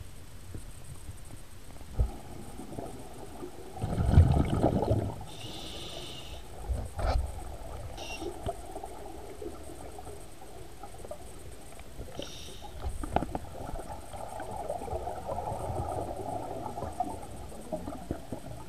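Underwater recording of scuba divers breathing through regulators: exhaled bubbles rumbling and gurgling, loudest in a burst about four seconds in, with a few short hisses and occasional sharp clicks.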